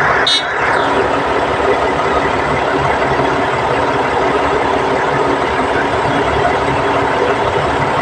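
Heavy diesel engine of a Cat D8T bulldozer running steadily. A brief high-pitched squeak comes about half a second in.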